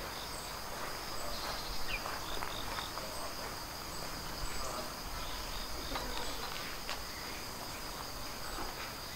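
Insects singing: a steady high-pitched shrill with short chirps repeating over it.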